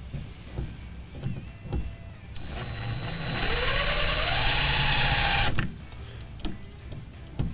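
Cordless drill boring a pilot hole through the pickup's bed floor: after a few light knocks, the drill runs for about three seconds with a rising whine over the hiss of the bit cutting, then stops abruptly.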